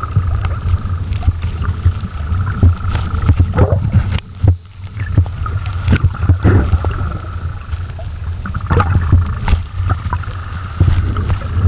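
Underwater recording: a steady low water rumble broken by frequent irregular knocks and thumps, with a faint tone that comes and goes.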